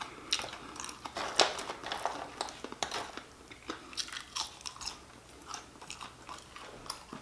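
A person chewing and crunching on fried french fries at the microphone, an irregular run of crisp crunches and mouth sounds.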